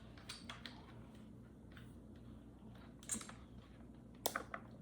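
Faint, scattered clicks and taps of hands handling a plastic LED desk lamp, with a short rustle partway through and two sharper clicks near the end.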